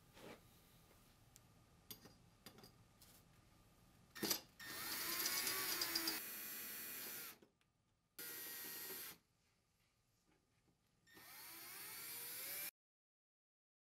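Cordless drill/driver driving the bracket screws of an in-ceiling speaker into the ceiling board, in three runs: a longer one about four seconds in, a short one around eight seconds, and a last one near the end that rises in pitch. A faint click comes just before the first run.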